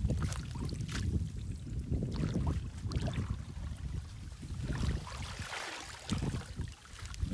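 Water sloshing and splashing over a steady low rumble, with scattered sharp clicks and knocks.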